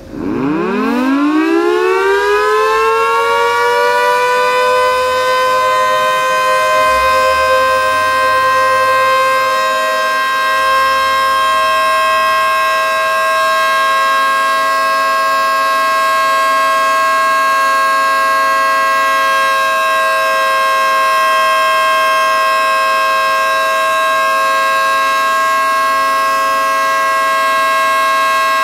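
Federal Signal 2T22B dual-tone electromechanical warning siren winding up from a stop over about three seconds, then holding a steady two-note chord at full pitch for a full test.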